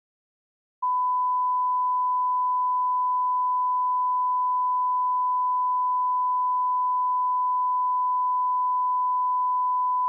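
A steady 1 kHz line-up test tone, a single unchanging pitch at constant level, starting abruptly about a second in: the reference tone laid at the head of a broadcast spot.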